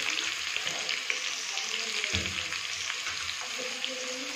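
Sliced onions sizzling and crackling in hot oil in an aluminium kadai as they are added for frying, with a dull knock about two seconds in.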